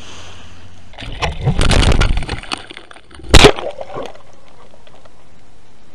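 Waterproof underwater camera being lowered into the sea. Its housing rubs and sloshes for about a second and a half, then gives one loud sharp knock, and after that there is only a steady muffled hiss under water.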